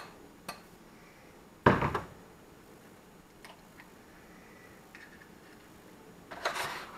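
An egg being cracked into a bowl: one sharp knock about two seconds in, a few faint clicks of shell as it is opened, and a short rustle or scrape near the end.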